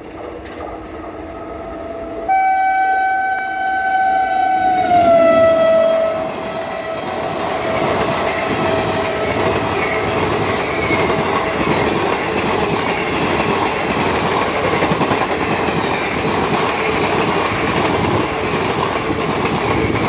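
WAP7 electric locomotive's horn sounding one long blast about two seconds in, its pitch dropping as the locomotive passes at speed. The horn fades out and gives way to the steady rush of the express coaches running by at about 110 km/h.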